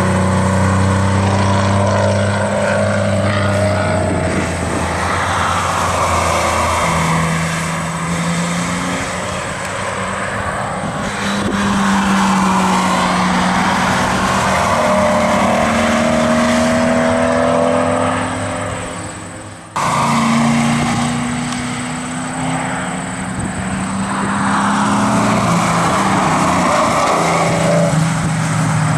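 Several sports cars' engines revving and passing one after another on a race circuit, the pitch rising and falling as they accelerate and lift through corners. About twenty seconds in the sound fades, then cuts suddenly to the next car.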